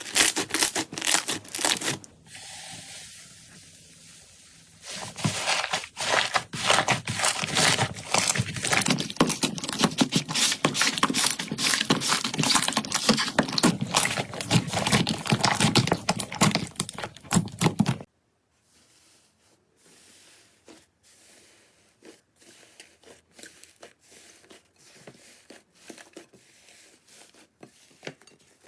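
Slime being squeezed and worked by hand, making dense, crackling, crinkling clicks. About two thirds through it cuts abruptly to a much quieter clip of fainter, sparser clicks.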